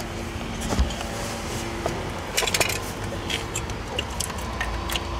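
Scattered clicks, knocks and a jangle of keys in the cab of the van as the driver handles the ignition keys.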